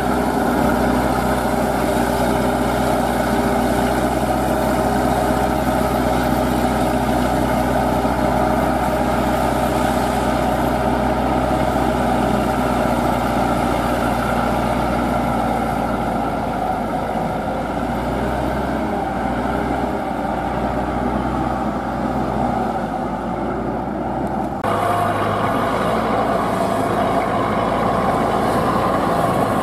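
Diesel engine of a homemade crawler-track tiller running steadily under load as it tills a flooded rice paddy. The engine note changes abruptly about 25 seconds in.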